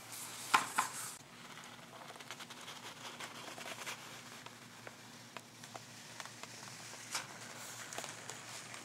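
Handling noise: soft rustling of paper with scattered small clicks, loudest in a short burst about half a second in.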